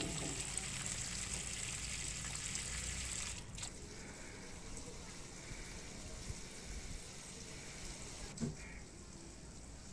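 Water from a plastic watering can splashing onto plant leaves and wet soil in clay pots: a steady hiss of sprinkling that drops to a softer pouring trickle about three and a half seconds in. A short knock near the end.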